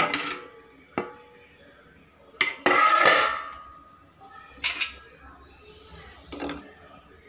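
A steel plate used as a lid clanks against a metal kadhai as it is lifted off and set aside. There are about six sharp metal knocks, the loudest a longer ringing clatter about three seconds in.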